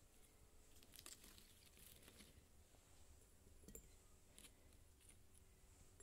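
Near silence, with a few faint soft clicks and rustles of small things being handled and set down.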